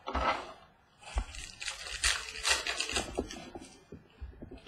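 Handling noise from opening a pack of trading cards: the wrapper rustles and crinkles in short irregular bursts, with light taps as the cards are handled on the table.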